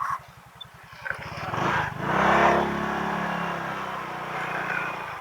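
Honda PCX160 scooter's single-cylinder engine ticking over at idle, then opening up about a second and a half in as it pulls away, the engine note rising and then holding steady under way.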